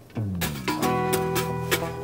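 Background instrumental music, coming in about half a second in.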